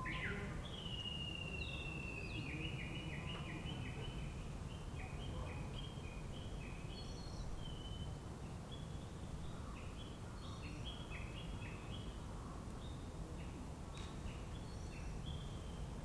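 Small songbird singing: a long whistled note that falls slightly, then a run of short, clear notes stepping up and down in pitch, over a steady low rumble.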